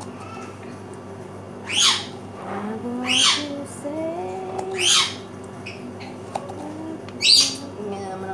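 A knife scraping out the inside of a small bottle gourd (upo), four short scraping strokes about a second and a half apart.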